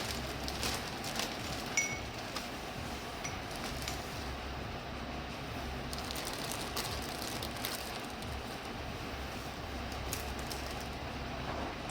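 Steady background noise with a low hum, with scattered light clicks and rustles as small motorcycle parts and bolts are handled and bagged.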